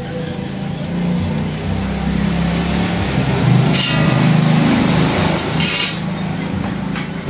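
An engine running with a steady low hum, swelling louder around the middle and then easing back, with two brief hissy noises along the way.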